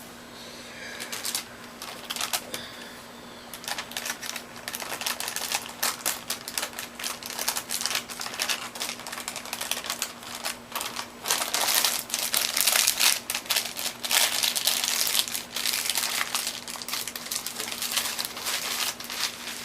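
Packaging being handled during an unboxing: dense crinkling with rapid irregular clicks, busiest from about halfway through, over a faint steady hum.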